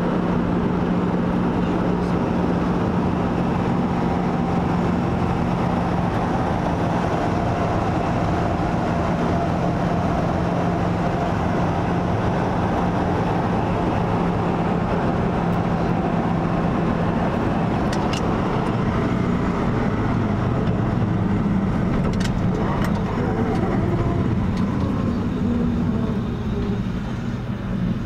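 1970 Ford F-250 Highboy pickup driving at road speed, its engine running steadily under road and wind noise heard from inside the cab. The engine note changes and the level dips slightly near the end as the truck slows.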